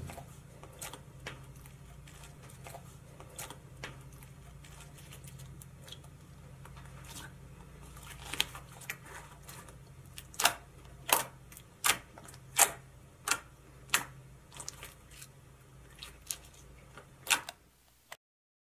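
Homemade borax slime squeezed and poked with fingers, giving sharp clicking pops as trapped air bursts. The pops are sparse at first and then come loud and regular, about one every 0.7 seconds, in the second half, over a low steady hum.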